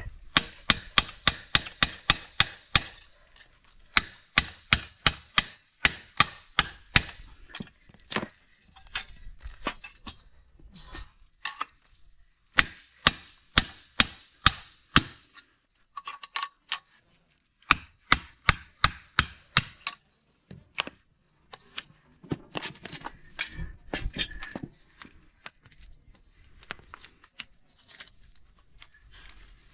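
Runs of sharp hammer taps, about four a second, in several bursts with short pauses between, typical of driving a swingarm bushing on a Honda CG 150 Titan.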